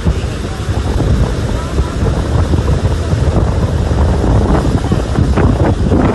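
Wind buffeting the microphone over the steady roar of rushing water from Niagara Falls, with people's voices faintly mixed in during the second half.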